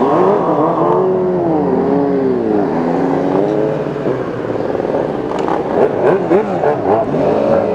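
Several sport motorcycle engines idling and being revved together, their pitch rising and falling again and again over a steady idle.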